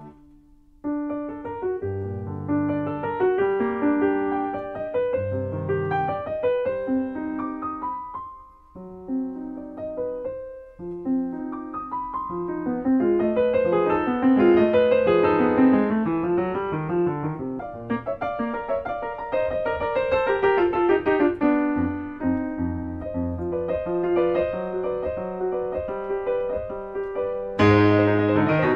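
Background piano music: a flowing melody over chords that starts about a second in and turns louder and fuller near the end.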